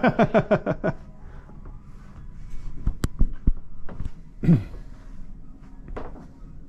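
A man's short laugh, then a quiet shop interior with a few soft knocks and thumps about halfway through and a brief voice sound.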